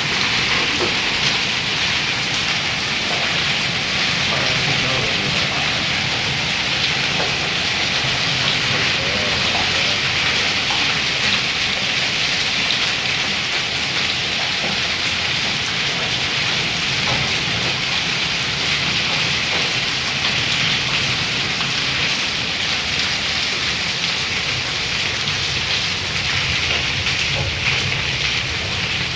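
Heavy rain mixed with hail pelting a flooded concrete yard: a steady, dense hiss and patter of stones and drops hitting concrete and standing water.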